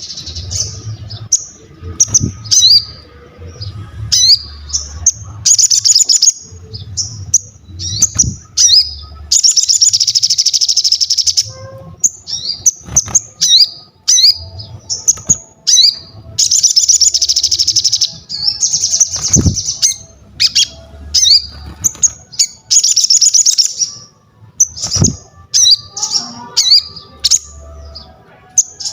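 A sogon singing in full voice: a fast, high-pitched string of sharp chirps broken by long, buzzy trills lasting a second or two each, repeated again and again.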